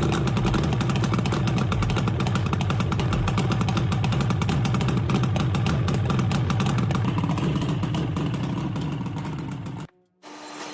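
A small engine running steadily with a rapid, even pulse, easing slightly before cutting off abruptly near the end.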